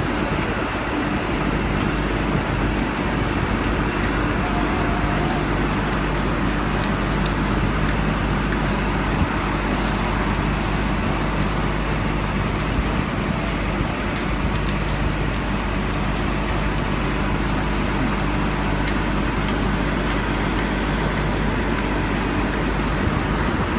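Large crane's diesel engine running at a steady speed, a constant low drone, mixed with road traffic noise.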